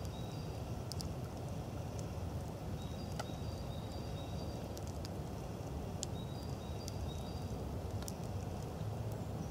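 Quiet forest ambience: a small bird gives a short, high, broken call again and again every few seconds, with occasional light clicks.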